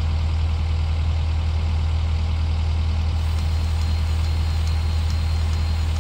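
Takeuchi TL10V2 compact track loader's diesel engine idling steadily.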